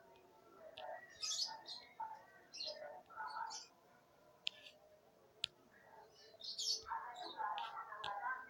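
Small birds chirping in short repeated bursts, with a few sharp clicks scattered through.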